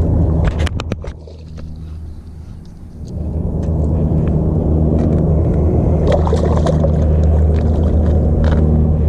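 A motor running with a steady low hum, which drops away about a second in and comes back around three seconds, with a quick run of clicks near the start.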